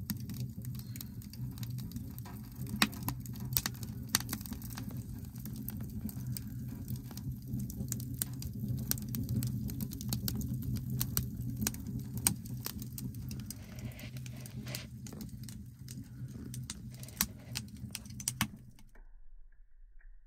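Wood fire burning in an Original Outbacker wood stove, crackling and popping with many sharp snaps over a steady low rumble. It cuts off suddenly near the end.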